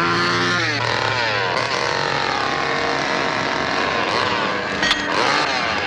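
A small engine revving up and down again and again in quick rising and falling sweeps, with a sharp knock about five seconds in.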